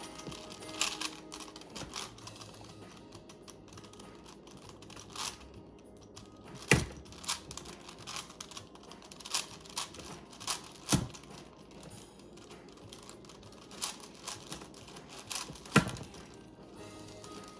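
Plastic layers of a 5x5 Rubik's cube being turned by hand: irregular small clicks and clacks, with a few sharper clacks standing out.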